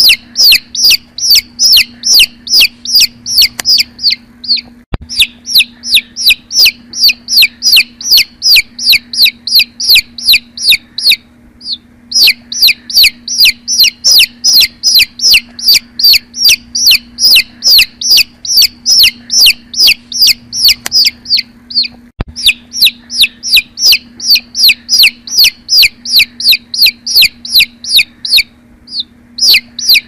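Baby chick peeping: a rapid run of high, downward-sliding peeps, about three a second, broken by short pauses every several seconds.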